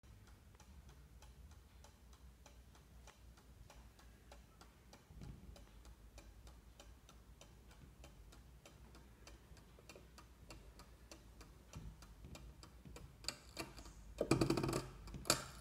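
Vintage key-wound mantel clock's pendulum movement ticking steadily. Near the end come louder clicks and a short clatter as the minute hand is pushed round by hand toward the hour.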